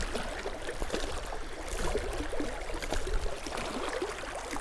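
Strong river current rushing and gurgling around a wading angler's legs, with small splashes throughout.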